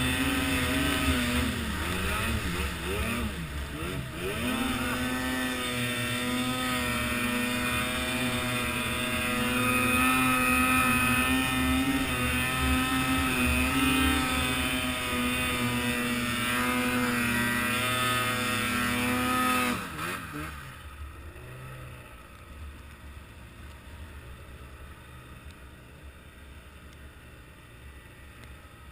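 A vehicle engine running hard at steady high revs, its pitch dipping and recovering a few times early on. About twenty seconds in the revs fall away and the engine sound drops to a much lower level.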